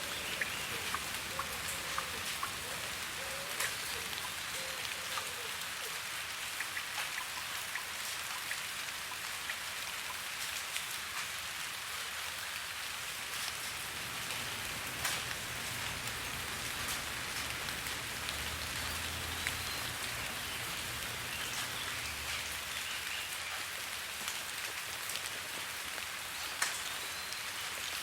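Steady rain falling, an even hiss with scattered sharper drop ticks throughout.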